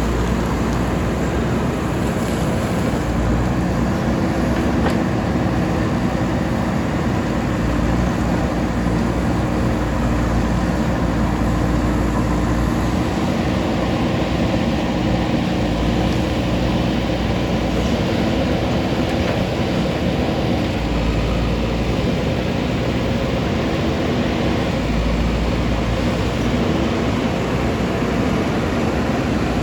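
JCB backhoe loader's diesel engine running steadily as the machine works, its pitch and strength shifting a little every few seconds.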